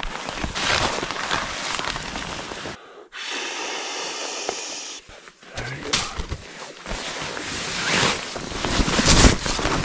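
Breath blown hard into a fabric pump sack in an even rush for a couple of seconds. Around it, the sack rustles and crinkles as it is handled and squeezed to force air into an inflatable sleeping pad, growing louder near the end.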